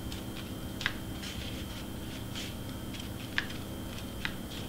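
Hands pressing and smoothing a glitter cardstock layer onto a glued paper cake topper on a cutting mat: three light taps over a steady background hum.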